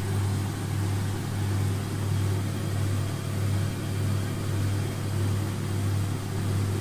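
Steady low engine and rotor drone of a helicopter heard from on board, throbbing evenly about every two thirds of a second over a constant hiss.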